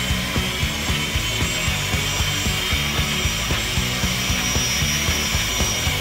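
Model RC bulldozer's electric drive running its tracks: a steady whirring and scraping with a thin high whine, heard over background music with a steady beat.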